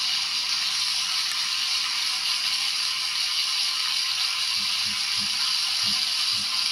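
Recorded sizzle of beef frying in a pan, played through the tiny built-in speaker of a miniature toy frying pan: a steady, thin, tinny hiss with no low end.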